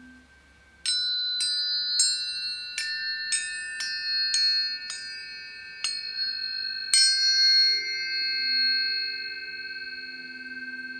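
Tuning forks struck again and again, about ten sharp strikes in six seconds, each leaving high, pure ringing tones that overlap into a chord. Lower humming tones join about seven seconds in and ring on with the high tones.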